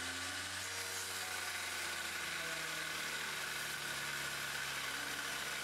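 Angle grinder in a chop-saw stand running steadily, its cut-off disc grinding through a steel threaded rod, with a constant whine over the motor hum.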